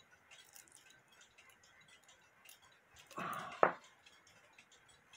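Hubert Herr cuckoo clock movement being worked by hand: faint light clicks from its levers, then a brief rustle and one sharp click about three and a half seconds in.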